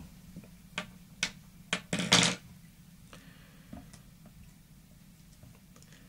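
A few sharp clicks and taps from hands handling fly-tying tools and materials at the vise, loudest as a quick cluster about two seconds in, then only faint small ticks, over a low steady hum.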